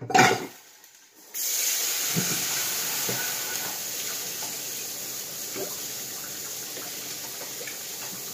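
Water running from a kitchen tap: a steady hiss that starts about a second in, after a short knock, with a few faint knocks from handling over it.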